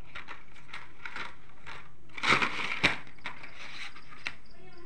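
Cardboard box of sparklers being opened by hand: short rustles, clicks and scrapes of card, the loudest cluster a little over two seconds in.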